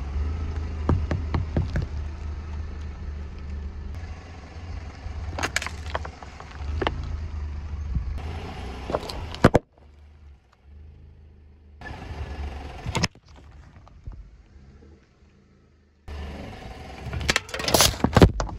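A car tyre rolls slowly over objects laid on asphalt and crushes them, over the car's low rumble. Sharp cracks and pops sound as the items burst, in several short takes cut together. The loudest bursts come near the end, as drink cans split and spray under the tyre.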